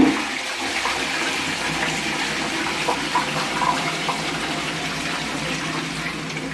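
Toilet flushing: a pretty good flush, a steady rush of water through the bowl that eases slightly near the end.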